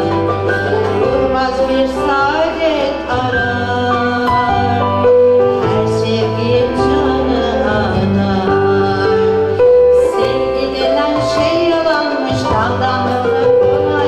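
A female soloist singing a Turkish art music song in makam rast, with an instrumental ensemble accompanying her.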